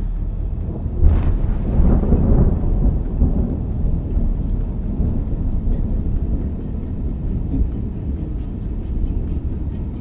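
A thunderclap about a second in, cracking sharply and then rolling on for a couple of seconds, over a steady low rumble.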